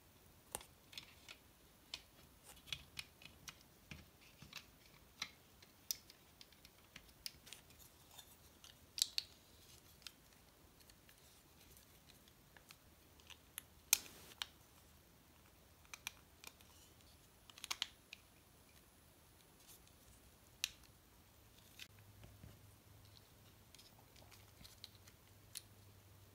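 Scattered small clicks and snips of hard plastic: snap-fit model-kit parts being cut off their sprues, handled and pressed together. A few sharper snaps stand out, the loudest about 14 seconds in.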